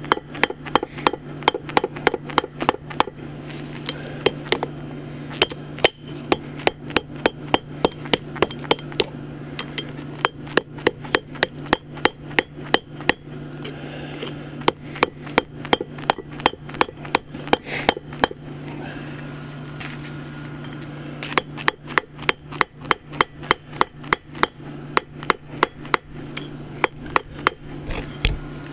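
Hand hammer forging a hot railroad spike on the anvil of a steel bench vise: rapid ringing blows, about three a second, in several runs with short pauses between them. A steady low hum runs underneath.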